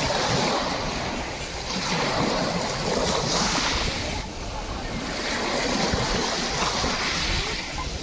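Small waves breaking and washing up over a pebble beach, swelling and fading about three times.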